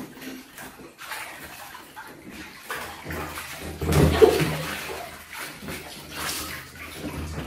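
Water splashing and sloshing in a small inflatable paddling pool as a child moves about in it, loudest about four seconds in.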